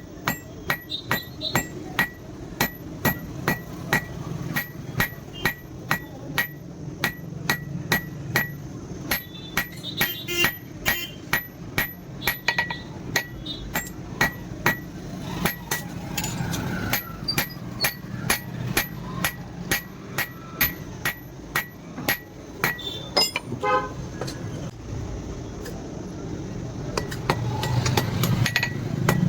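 Hammer blows on metal at an anvil in a steady rhythm, about two to three a second, each with a bright ringing note, as steel is forged into a dagger. The blows pause for a few seconds near the end, then resume.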